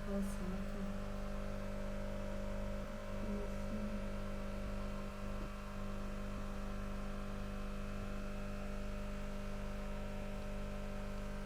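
Steady electrical hum, a low drone with several fixed pitches that does not change.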